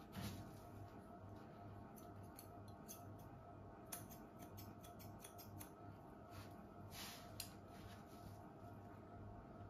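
Hair-cutting scissors snipping the ends of long, straight hair: quiet snips in uneven runs, with sharper ones about four seconds in and again after seven seconds, over a faint steady hum.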